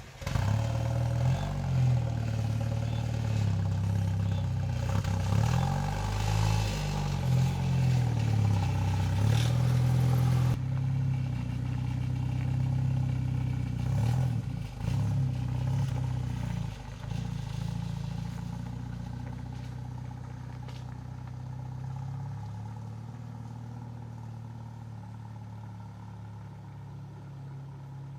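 Jeep Cherokee XJ engine running just after being started. The sound changes abruptly about ten seconds in, losing its higher hiss, then grows gradually quieter.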